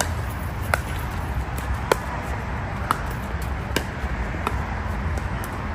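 Pickleball rally: sharp pops of paddles striking a plastic pickleball, six in all, about one a second, over a steady low rumble.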